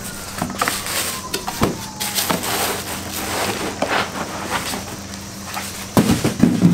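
Cardboard box flaps being opened and a plastic bag crinkling and rustling as it is pulled back by hand, with scattered knocks of handling and the loudest thuds near the end.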